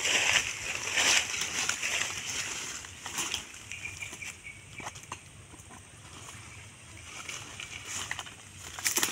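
Footsteps and rustling through wet undergrowth and sodden ground, with irregular splashy bursts that die down in the middle and pick up again near the end.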